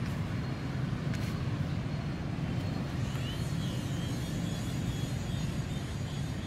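Steady low outdoor background rumble, with a faint brief high warble about three seconds in.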